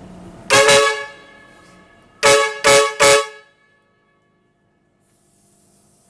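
Circuit twin-trumpet electric air horn sounding on low air pressure, about 50–60 PSI from a compressor: one blast about half a second in, then three short toots in quick succession.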